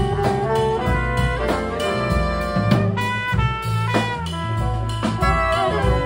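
Jazz ensemble playing: two saxophones, trumpet and trombone sounding together in held, shifting chords over walking upright bass and drum kit.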